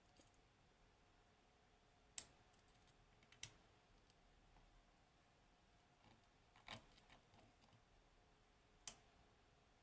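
Faint metallic clicks of a lock pick working the sliders of an Assa Desmo lock under tension: four sharp clicks spread across several seconds, with softer ticks between them.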